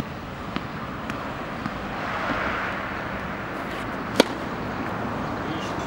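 A tennis ball struck by a racket: one sharp, loud pop about four seconds in, over steady outdoor background noise, with a few fainter ticks in the first two seconds.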